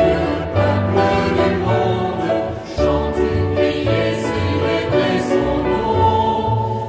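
Choral music: a choir singing held chords that change every half second or so, over a low bass line.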